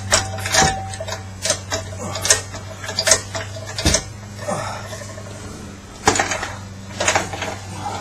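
Metal tools and parts clinking and clanking at irregular intervals, a dozen or so sharp knocks with some brief metallic ringing, over a steady low hum.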